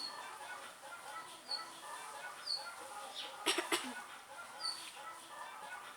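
Birds in the background: short, high, falling chirps every second or so, with a brief cluster of louder, sharp cluck-like calls about halfway through.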